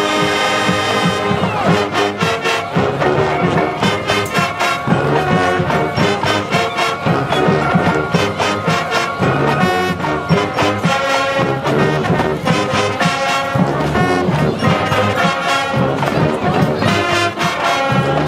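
High school marching band playing a brass-led tune, horns over a steady drumline beat.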